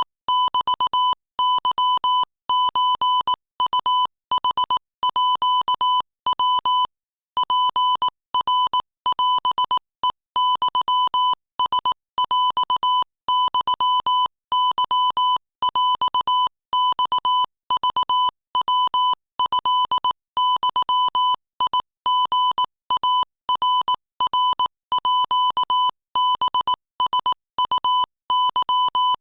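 Morse code keyed at 22 words per minute: a single-pitched electronic beep switched on and off in quick dots and dashes, with short gaps between letters and one longer pause about seven seconds in.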